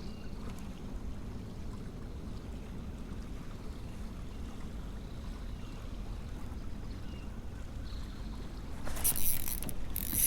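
Steady low wash of wind and choppy waves around a kayak, then near the end several spurts of splashing at the water's surface as a hooked fish is brought up.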